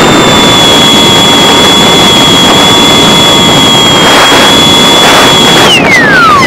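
Electric motor and propeller of an EasyStar RC plane, heard from on board with heavy wind rush: a steady high whine that, near the end, glides steeply down as the motor slows.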